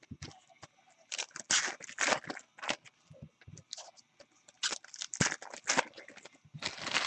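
Baseball card packs and cards being handled: crinkling and rustling of the pack wrappers and cards sliding on one another, in short, irregular bursts.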